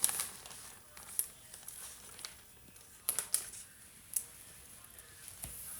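Faint rustling with a few light clicks and taps, including a quick pair around three seconds in, as hands sprinkle chopped cilantro over crunchy corn tostadas on a plate.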